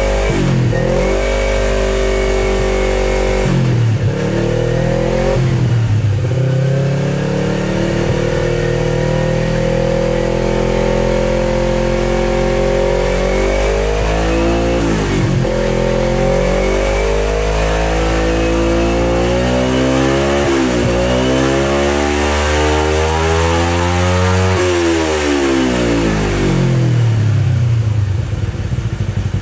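Kawasaki Ninja 250R parallel-twin engine through a Yoshimura aftermarket exhaust, revved up and down repeatedly. Near the end it climbs slowly to a high peak, then falls back toward idle.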